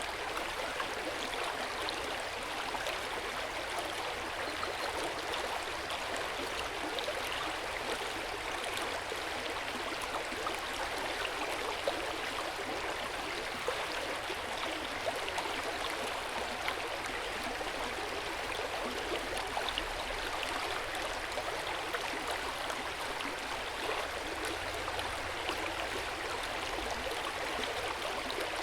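Hot spring water flowing into an open-air bath: a steady, even rush of water with small drips and splashes running through it.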